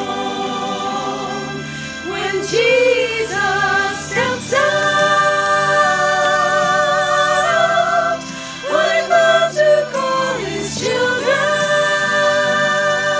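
A group of women singing together in harmony, holding long notes with vibrato and moving to new notes together every few seconds.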